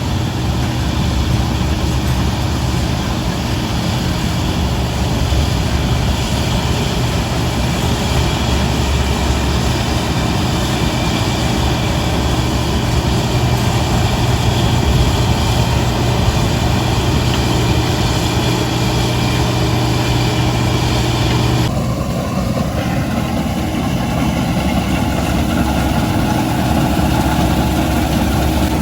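Heavy farm machinery engine running steadily with a deep, even hum. The sound changes abruptly about three quarters of the way through.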